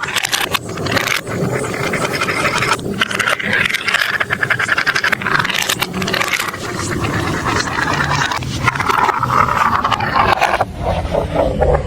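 Marbles rolling and clattering along plastic marble-run building-block tracks: a steady rolling rumble full of quick little clicks and knocks, which drops lower in pitch near the end.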